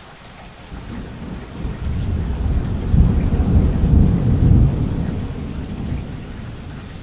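Thunder rumbling over steady rain: a deep rumble swells about a second in, is loudest around three to four and a half seconds, then dies away near the end.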